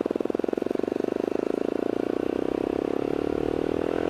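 Suzuki LTZ 400 quad's single-cylinder four-stroke engine running. Its separate firing pulses are plain at first, then blend into a steady, slowly rising note as the revs climb.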